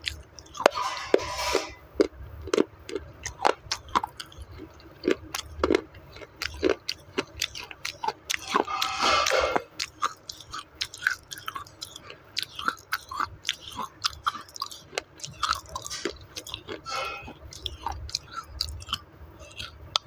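Close-miked crunching and chewing of a clay roti, a thin flat disc of clay, with sharp cracks coming several times a second. Two longer, louder crunches, about a second in and about nine seconds in, are bites breaking off pieces.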